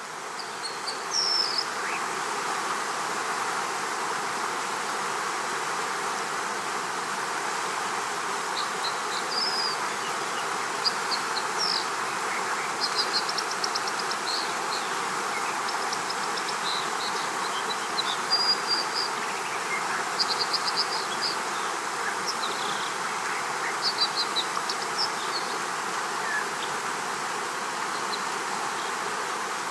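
Outdoor nature ambience: a steady rushing hiss with short high chirps and quick trills coming and going every second or two.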